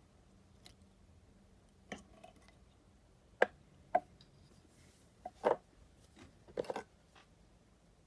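Several short, sharp clicks and snips, spaced a second or so apart, from small fly-tying tools being handled at the vise.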